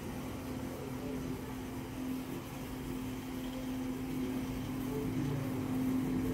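Steady mechanical hum carrying one constant low tone, with a faint low rumble beneath.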